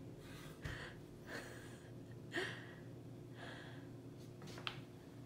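Soft breathy sounds: about five short puffs of breath or sniffs, roughly one a second, with a faint click near the end.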